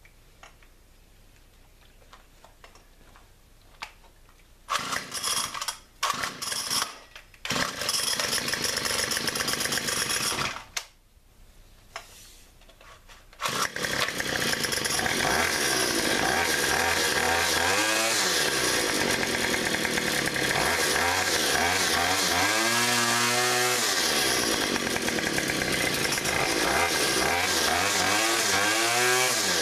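Homelite two-stroke engine being started: it catches in fits about five seconds in, runs for a few seconds and dies. It restarts about thirteen seconds in and keeps running, revved up and back down several times.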